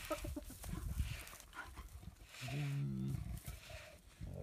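A leopard and a spotted hyena feeding on a carcass: irregular rustling, tearing and knocking of the kill, with one low, drawn-out growl lasting under a second about two and a half seconds in.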